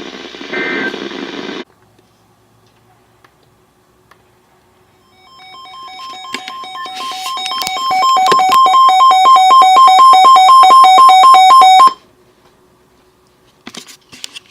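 Electronic alert alarm from a weather alert radio: a rapidly pulsing two-pitch beep that swells in loudness over about three seconds, holds at full volume, then cuts off abruptly. It sounds as the next flash flood warning comes in.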